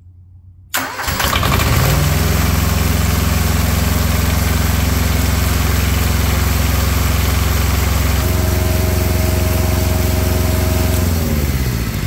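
Small diesel engine of a Carrier ComfortPro truck auxiliary power unit cranked by its electric starter about a second in, catching almost at once and running steadily. Near the end it is shut off and spins down.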